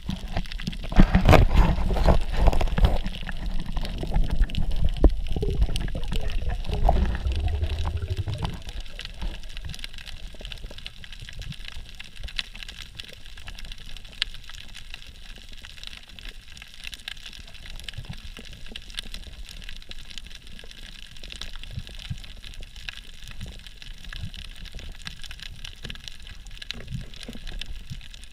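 Underwater sound through an action-camera housing: loud rushing and bubbling water for the first eight seconds or so, then quieter, with a steady crackle of many tiny clicks.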